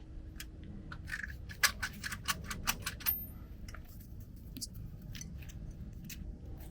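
Small metal parts and hand tools clinking and clicking as they are handled, with a quick run of sharp clicks between about one and three seconds in, then scattered clicks.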